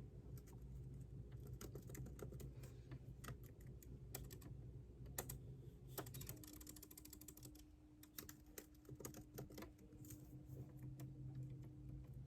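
Typing on a computer keyboard: quiet, irregular key clicks, with a quick run of keystrokes about six seconds in, over a low steady hum.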